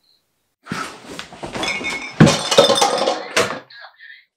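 A person thrashing about on a bed: rustling bedclothes with a run of thumps and a few clinks, the loudest knocks a little after two seconds and again near the end, followed by a couple of short high chirps.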